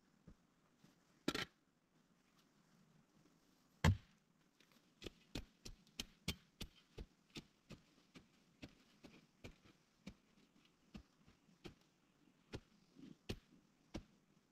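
A single loud knock, then a steady run of short sharp taps, about three a second, like light chopping or tapping on wood.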